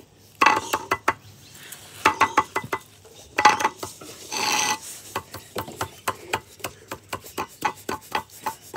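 A potion mixture being stirred and mashed in a small cup: rapid clicking and tapping with some scraping, in clusters, and a brief rustle about four seconds in.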